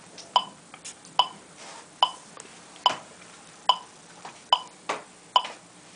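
Metronome clicking at a steady tempo of roughly 70 beats a minute, a little more than one click a second, with a few fainter ticks in between.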